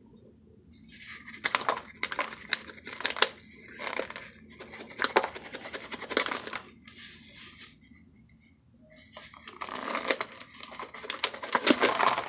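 Dry, brittle baked white chunks being crushed in a plastic tub under the bottom of a container: irregular crunching and crumbling with sharp snaps, in two spells with a pause of about two seconds between them.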